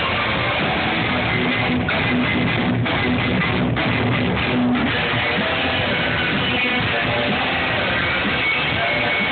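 Live punk rock band playing loudly, electric guitar to the fore over the full band, with a repeated low note standing out between about two and five seconds in.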